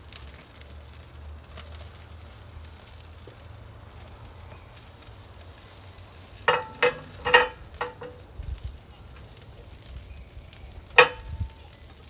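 Spatchcocked chicken sizzling on a hot grill under a cast iron pan, a steady hiss. About two-thirds through, a quick run of ringing metal clanks, and one more near the end, as metal cookware and grill parts are handled.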